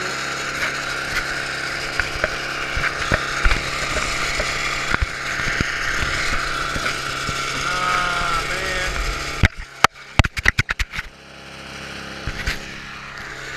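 MTD snow blower's 5 hp engine running steadily. About nine and a half seconds in, a rapid run of knocks and clicks from the camera being handled breaks in, after which the engine is quieter.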